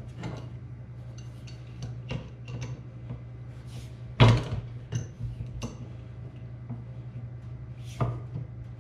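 Metal parts and hand tools clinking and knocking on a workbench as a hydraulic cylinder and its fitting are reassembled. The knocks are scattered and irregular, the loudest one about four seconds in, over a steady low hum.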